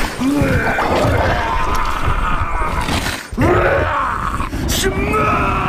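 A man groaning and roaring in a deep, strained voice, a Hulk-style transformation roar, in two long stretches broken briefly a little past the middle.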